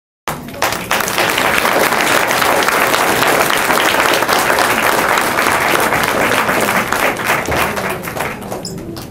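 Audience applauding, a dense patter of many hands clapping that cuts in suddenly just after the start and dies down near the end.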